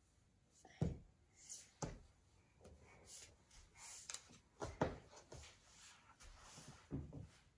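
A baby's hands and knees knocking on a wooden tabletop as she shifts and crawls: four dull thumps spread through, with soft rustling of clothing between them.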